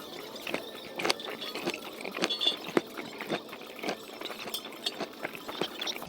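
Close-up eating sounds: irregular wet clicks and smacks of someone chewing food, about two or three a second.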